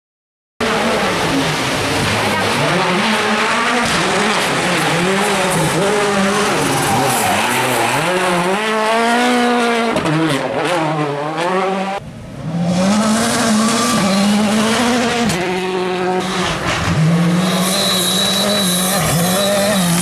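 Rally cars with turbocharged four-cylinder engines driven flat out, the engine note rising and falling sharply through gear changes and lifts, with tyres squealing as a car slides sideways. About twelve seconds in the sound cuts abruptly to another car accelerating hard.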